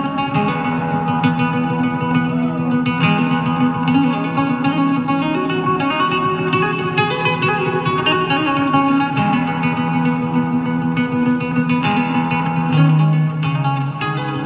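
Amplified nylon-string guitar played live with the fingers in quick runs of plucked notes over sustained lower notes, in a flamenco-like classical style.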